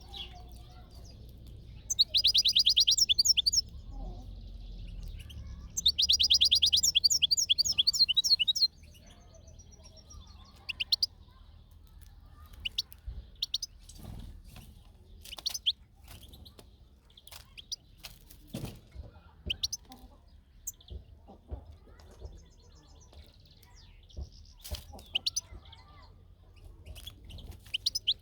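European goldfinch calling: two loud bursts of rapid trilled twittering, then scattered short chirps mixed with light clicks.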